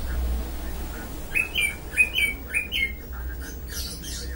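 A quick run of about six short, high chirps, each falling in pitch, around the middle, over a steady low hum.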